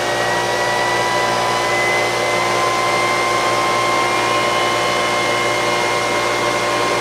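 Glowforge laser cutter's exhaust fan spinning up as a cut starts, together with a Harbor Freight dust collector running as a boost exhaust fan. It is a loud, steady whoosh with a whine that slowly rises in pitch.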